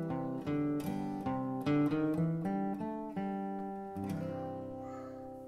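Background music: an acoustic guitar picking a melody of plucked notes, ending on a chord about four seconds in that rings out and fades away.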